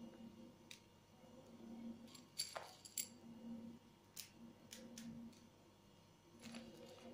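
Faint handling noise as chocolate drops are picked from a bowl and dotted onto a cream-topped cake in a glass dish: scattered light clicks and taps, the sharpest a pair about two and a half and three seconds in.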